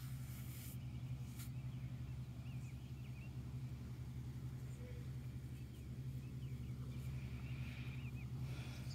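A steady low mechanical hum from a running motor, with a few faint bird chirps over it.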